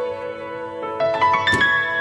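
Background piano music: sustained notes that overlap and change pitch, with a fresh note struck sharply about one and a half seconds in.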